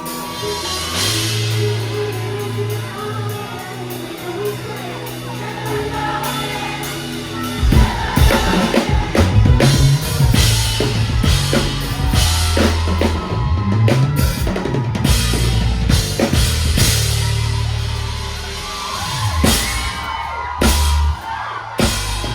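Live band music with singing: held low bass notes, then the drum kit comes in with kick and snare hits about eight seconds in.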